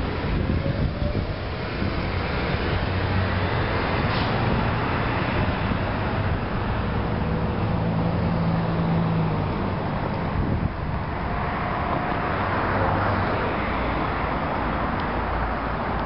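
Road traffic passing nearby: a steady rush of tyres with a low engine hum, swelling and easing as vehicles go by.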